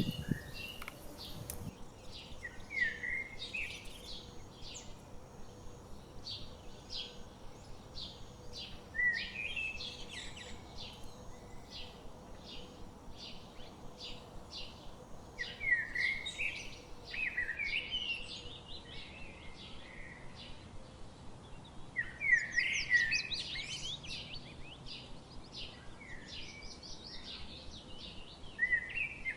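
Songbirds singing: several quick warbling phrases, loudest about halfway and again about three quarters of the way in, over a run of short high chirps about twice a second in the first half.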